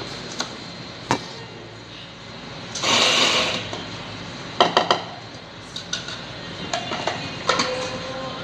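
Clinks and knocks of coffee-making equipment being handled on a café counter, with a short hiss about three seconds in, over a steady background hum.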